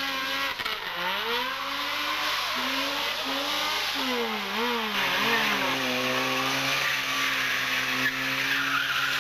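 Rally car engine revving up and down, its pitch swinging sharply through about the first six seconds and then holding steady, over a loud hiss of tyre and road noise.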